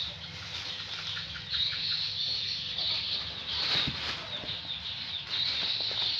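Black plastic bag rustling and crinkling as kittens wrestle over it, with soft scuffling of paws.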